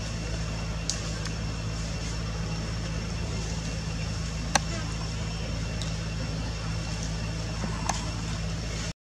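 Steady low motor hum with a few short clicks, the sharpest about halfway through.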